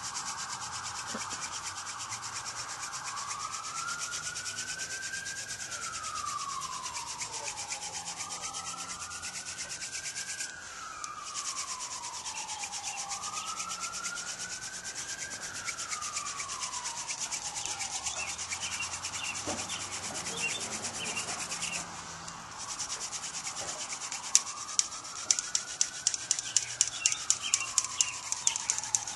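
Friction-fire hand drill: a Dame's Rocket spindle tip spun back and forth between the palms, rubbing and grinding in the hearth board's notch as it makes dust. Behind it a wail rises and falls about every four seconds. A run of sharp clicks, several a second, comes in about three-quarters of the way through.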